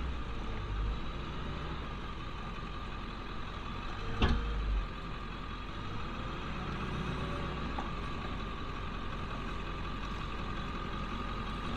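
Diesel pickup truck engine running steadily at low speed while towing a travel trailer, with one short knock about four seconds in.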